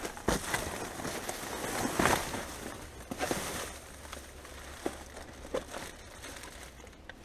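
Hands rummaging through rubbish in a dumpster: rustling and crinkling of packaging with scattered knocks and clicks, busiest in the first few seconds with a louder rustle about two seconds in, then sparser and quieter.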